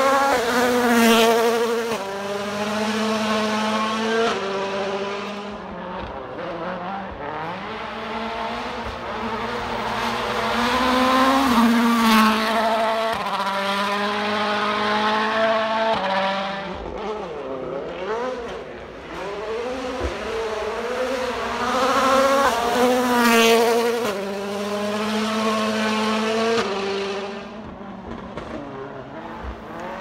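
Rally car engines revving hard on a gravel stage, climbing in pitch and dropping sharply at each gear change, over and over. The engines swell to their loudest about a second in, around twelve seconds and around twenty-three seconds.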